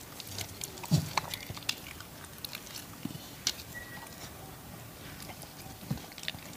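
Dogs snapping up and chewing hand-fed pieces of grilled chicken: scattered wet mouth clicks and small crunches. A short low sound about a second in is the loudest.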